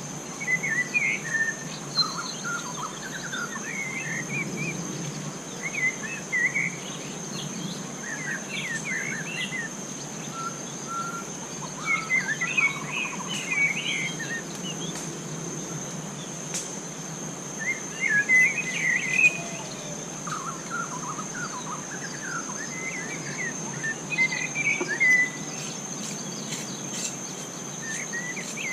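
Forest birds chirping and calling in short bursts every few seconds, over a steady high-pitched insect drone.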